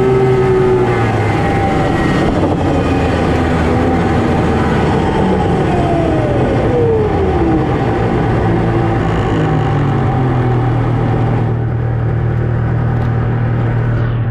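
Snowmobile engine running while riding, its note wavering, with one tone falling steadily about five to seven seconds in. Near the end it eases to a steadier, lower hum.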